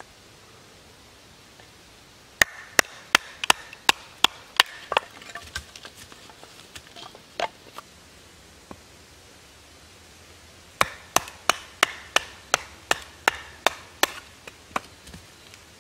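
A wooden baton knocking a knife's spine through kindling wood, splitting it: two runs of sharp knocks, about three a second, with a few scattered knocks between.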